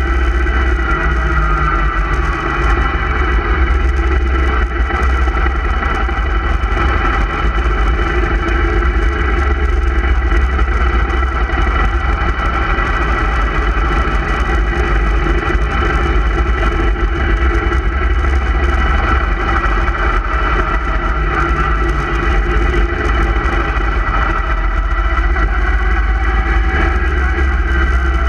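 Motorcycle engine running steadily while riding along at a constant speed, heard from a camera mounted on the moving bike, with a steady low rumble.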